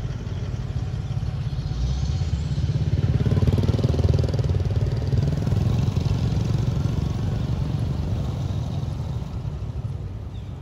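A motor vehicle's engine passes by: a low, pulsing engine sound that swells to its loudest about four seconds in and then slowly fades.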